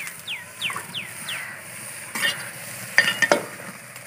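Long steel spoon stirring a potato, carrot and tomato stew in an aluminium pot over a wood fire, scraping and clinking against the pot, with two sharp metal clanks about three seconds in. In the first second and a half, four short falling chirps come about every 0.4 s.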